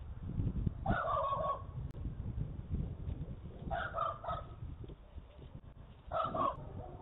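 Short animal calls heard three times, each a quick group of two or three notes, about every two and a half seconds, over a steady low background rumble.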